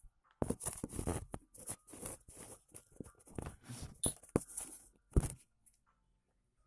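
Handling noise from a phone camera held and moved against bare skin and clothing: irregular rustling and rubbing on the microphone, ending in a sharp knock about five seconds in as the phone is set in place.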